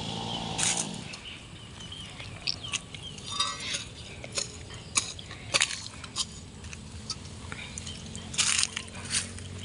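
A chainsaw runs on briefly and stops about a second in. After that come scattered sharp snaps and crackles, with a faint low hum underneath.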